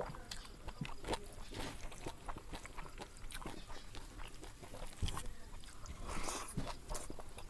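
Close-up mouth sounds of a man chewing a mouthful of rice with fried river fish and vegetables, eaten by hand, with many small clicks throughout.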